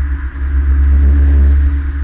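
2013 Hyundai Veloster Turbo's 1.6-litre turbocharged four-cylinder under way through a Borla aftermarket exhaust: a steady low exhaust drone with a deep rumble, swelling briefly about a second in.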